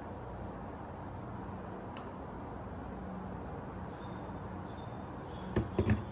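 Hot water poured from a kettle into a glass teapot through its infuser lid, a low steady trickle. Near the end the pour stops and there are a few quick knocks.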